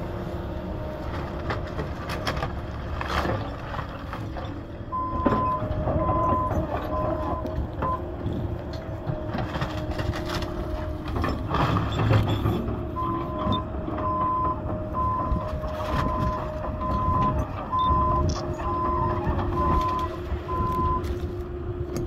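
Excavator's diesel engine running under load while its travel alarm beeps at one steady pitch, slightly faster than once a second: a short run about five seconds in, then a longer run until near the end, as the machine moves. Scattered knocks are heard over the engine.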